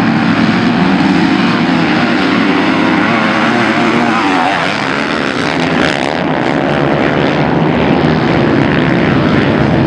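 A pack of off-road dirt bikes racing, a loud dense drone of many engines running at once. In the second half, single bikes pass close by.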